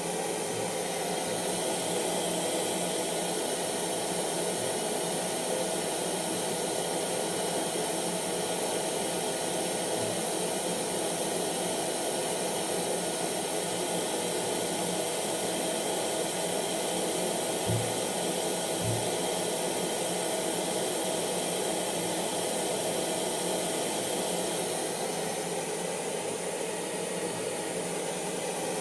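Hair dryer running steadily: a continuous airy rush with a faint steady motor whine in it. Two soft low bumps come a second apart, a little past the middle.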